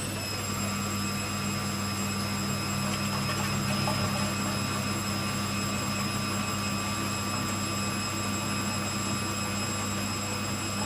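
Indesit 860B washing machine spinning at a steady speed: a steady motor whine with several tones over a low hum from the drum. It is a slow spin that the owners judge well short of 400 rpm, more like 300.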